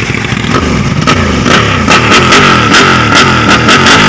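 Intro music with electric guitar and a steady beat of sharp drum hits.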